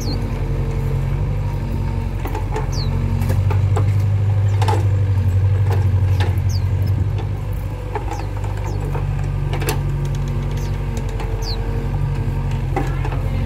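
Volvo EC55B mini excavator's diesel engine running steadily as the machine digs wet mud, louder through the middle stretch, with scattered sharp knocks from the bucket and arm.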